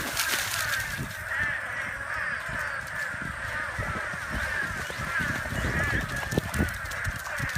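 A dense, steady chorus of many overlapping warbling animal calls, all at about the same pitch.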